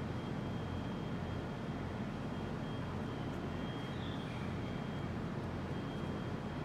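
Steady low outdoor background rumble, like distant traffic, with a faint steady high-pitched tone and one brief high chirp about four seconds in.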